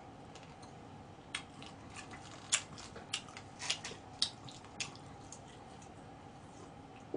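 Close-up eating sounds from a person eating seasoned chicken: a scattering of short, sharp clicks and smacks between about one and five seconds in, over a quiet steady background.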